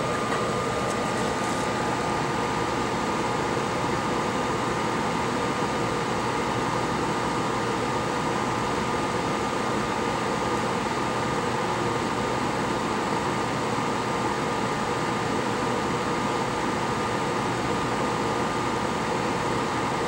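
Steady fan-like hiss of bench equipment, with a constant whine running through it.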